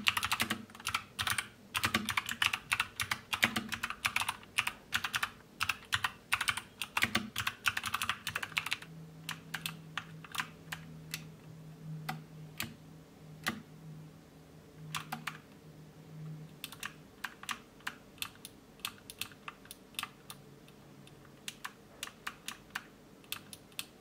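Typing on a ZET Blade Pro mechanical keyboard with Kailh Box White clicky tactile switches, each keystroke giving a sharp click from the switch's click bar. Fast, dense typing for about the first nine seconds, then slower, sparser keystrokes.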